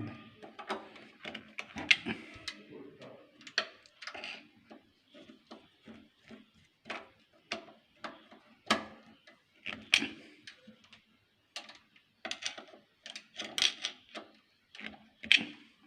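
Irregular small metallic clicks and taps of a screwdriver and parts on a sewing machine's shuttle (hook) assembly, as the shuttle is tightened down after being adjusted to the needle to cure skipped stitches.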